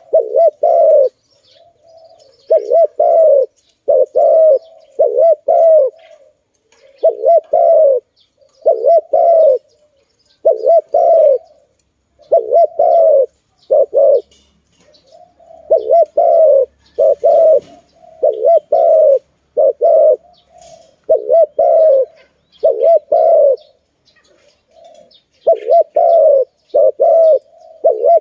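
Spotted dove (tekukur) cooing over and over, each phrase two or three low, hoarse coos, repeated roughly every two seconds. Faint chirps from small birds sound in the background.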